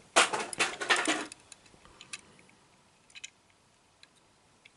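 Handling noise from a die-cast toy car and its packaging: about a second of rustling, then a few light scattered clicks.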